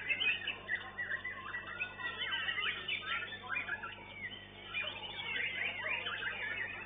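White-rumped shama (murai batu) singing: a fast, unbroken run of varied whistled phrases with sliding notes, dipping a little about four seconds in.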